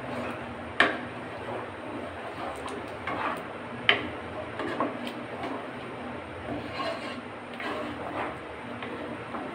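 Wooden spoon stirring thickened milk rice pudding in a non-stick pot, scraping along the bottom and sides in repeated strokes. Two sharp knocks of the spoon against the pot stand out, about one second and four seconds in.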